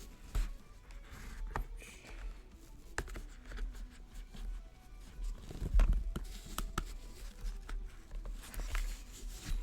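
Irregular small clicks, taps and scrapes of metal lock picks and a lock being handled, with one louder knock a little past the middle.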